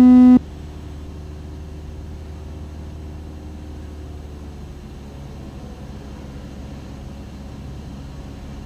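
At the very start, the last low note of a two-note high-low autopilot-disconnect alert tone cuts off. After it, the Cessna 172SP's Lycoming IO-360 engine and propeller drone steadily in cruise, heard from inside the cabin.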